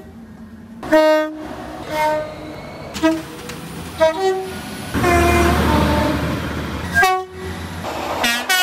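Train horn sounding a string of short blasts, roughly one a second, with a loud rumble of train noise for a couple of seconds in the middle and a blast near the end whose pitch bends.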